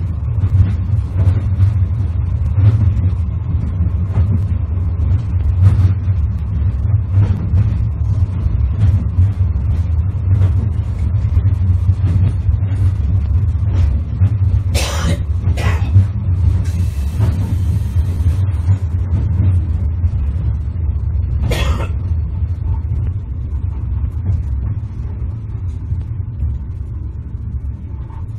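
Sapporo city tram running between stops, heard from inside the car: a steady low rumble from the running gear, with frequent clicks of the wheels over the rails. A few short louder noises and a brief hiss come near the middle, and the rumble eases off toward the end.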